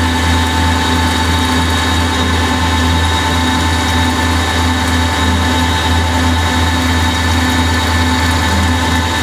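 Ganesh CNC lathe running through a cutting cycle on 3/8-inch aluminum bar: a loud, steady machine hum with several constant high-pitched whines over it.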